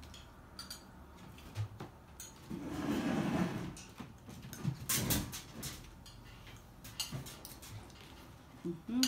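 Knife and fork clicking and tapping against a cake, its cardboard box and a plate as a slice is cut and lifted out, in scattered light taps with a louder click about five seconds in. A longer muffled sound comes around three seconds in.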